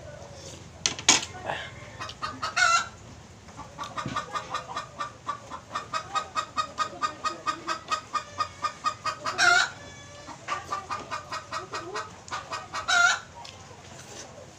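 Chicken cackling: runs of quick clucks, about four a second, broken by a few louder squawks.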